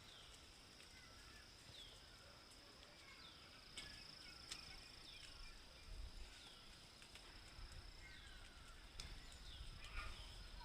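Faint outdoor ambience of small birds giving short, falling chirps every second or so, over a steady high insect hum.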